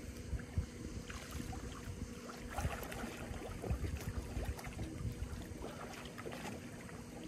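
Swimming-pool water sloshing and splashing as a swimmer paddles through it, with a low wind rumble on the microphone.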